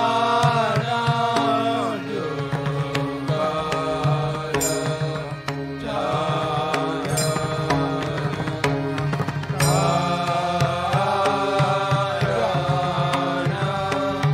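Devotional arati hymn sung in phrases a few seconds long over a steady drone, with frequent percussion strikes keeping time.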